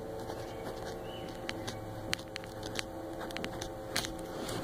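Pen writing on a paper receipt pad: faint scratching and a few light taps of the pen on the paper, over a steady background hum.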